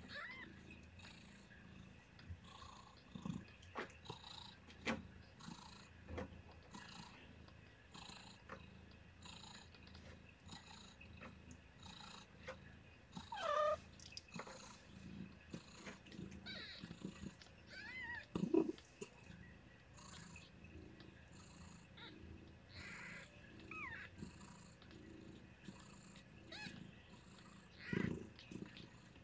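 Soft, steady cat purring under a nursing litter of newborn kittens, which give brief high squeaks now and then, the loudest about halfway through. Faint soft rhythmic wet sounds repeat about once a second.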